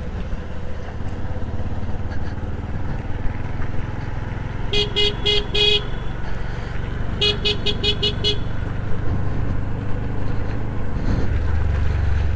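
A vehicle horn beeped in two quick series of short toots, about four and then about six, over the steady low running of a motorcycle on the move.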